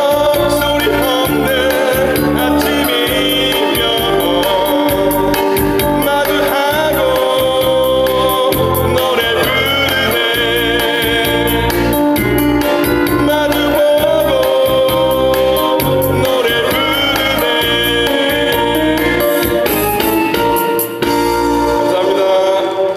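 A man singing a Korean pop song into a microphone over a recorded backing track of keyboard and a steady bass beat. The song ends just before the end.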